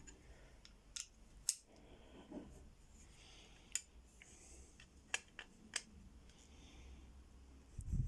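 Sparse, sharp small clicks and taps of metal parts being handled while a screwdriver works on a Yale two-lever lock to open its case.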